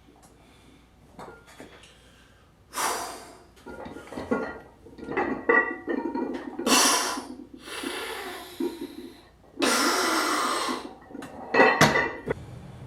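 A man breathing hard during a strength workout, with several loud forceful exhales, each lasting up to about a second. Between them come short clicks and clinks, with a few sharper knocks near the end.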